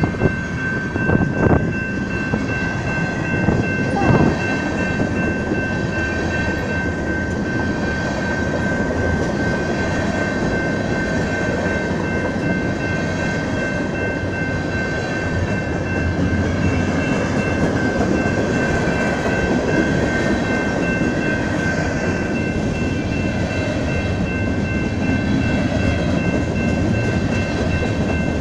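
Freight cars of a manifest freight train rolling past: a steady rumble with a few wheel clacks over rail joints in the first seconds and a steady high-pitched ring throughout.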